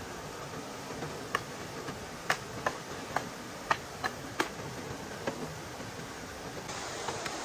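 A string of about nine sharp, irregular knocks or clicks over a steady background hiss, with the hiss growing brighter near the end.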